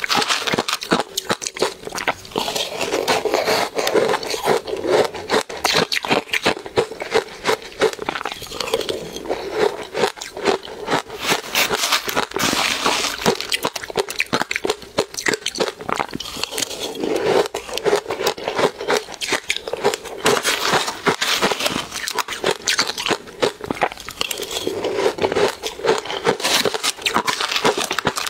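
Powdery frozen ice dusted with matcha being eaten: dense, rapid crunching and crackling bites and chewing, mixed with a metal spoon scraping and scooping into the ice.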